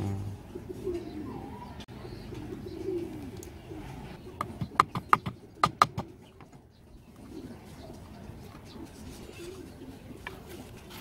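Claw hammer tapping a small nail into a wooden board: a quick run of about eight sharp strikes midway. Birds cooing in the background.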